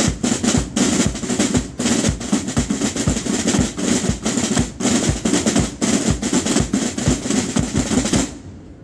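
A corps of drums' side drums playing a drum beat of rapid strokes and rolls, all stopping together a little over eight seconds in.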